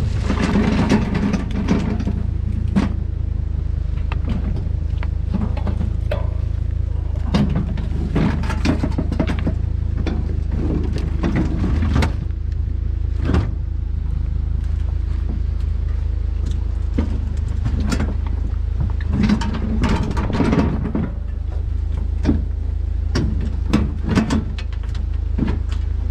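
A vehicle running and being driven, heard as a steady low engine and road rumble with scattered clicks and knocks.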